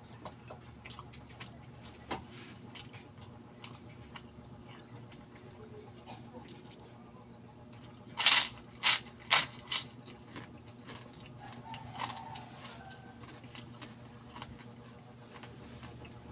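Close-up chewing and small wet mouth clicks. About eight seconds in come four loud crunches about half a second apart as a piece of crispy pork rind (chicharon) is bitten and chewed, then one smaller crunch a few seconds later.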